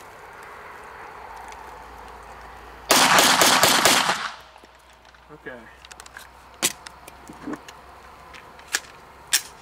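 Glock 17 Gen 3 9mm pistol fired in a rapid string of shots lasting just over a second, after being dunked in sand. A few sharp clicks follow.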